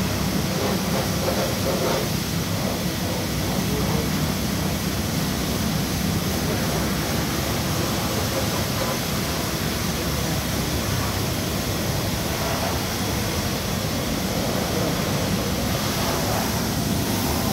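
A steady rushing noise with a low hum underneath, unchanging in level throughout.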